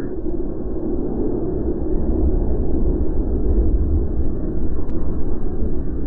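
Steady, loud low rumbling noise with fluctuating deep lows and no distinct events.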